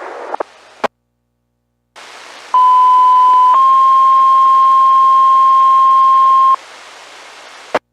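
Two-tone sequential fire pager alert received over a VHF low-band scanner: a steady tone about a second long, then straight into a slightly higher tone held for about three seconds. Radio hiss surrounds the tones, and a squelch click marks the end of the transmission.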